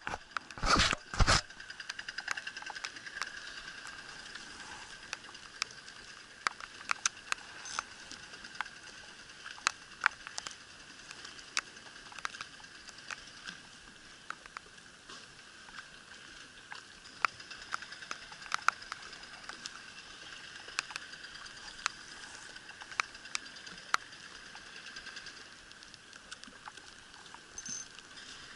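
Rain pattering on the camera: a steady hiss with many irregular sharp drop clicks. A few louder knocks come about a second in.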